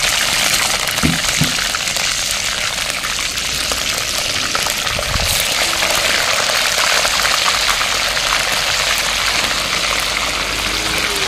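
Rohu fish steaks frying in hot oil in a kadhai: a loud, dense sizzle and crackle of spitting oil, with more pieces slid in along the way.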